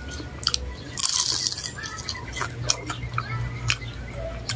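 Close-up chewing and crunching of a fried dynamite lumpia, with a few sharp crunchy clicks and a short crisp crunch about a second in.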